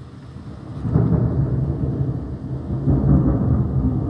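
Thunder during a storm: a low rolling rumble that swells about a second in and builds again around three seconds.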